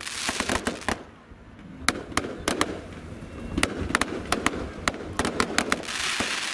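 Fireworks going off: a scattered string of sharp bangs and cracks, with a dense crackling hiss in the first second and again near the end.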